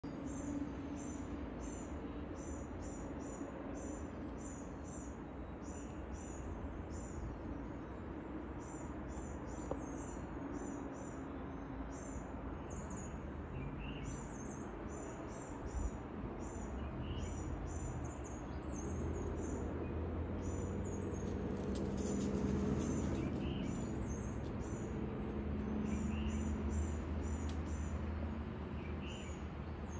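Outdoor ambience with a small creature's high-pitched chirp repeated about twice a second, with a few fainter, lower chirps now and then. A low rumble grows louder about two-thirds of the way in.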